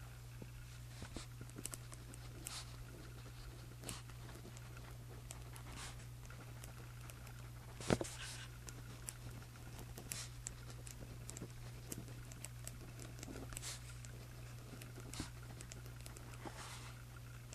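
Writing by hand in a paper journal: soft, irregular scratches and taps of the strokes on the page, with one louder stroke about eight seconds in. A steady low hum runs underneath.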